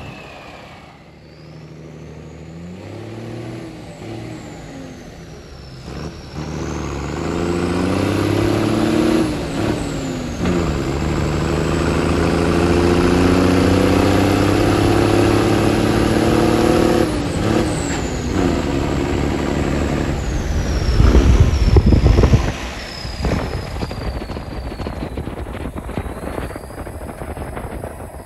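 M35 Reo deuce-and-a-half army truck under way, its engine revving up through the gears: the pitch climbs, then drops at a gear change about a third of the way in and again just past the middle, with a high whine rising and falling along with it. A loud low rumble comes about three-quarters of the way through.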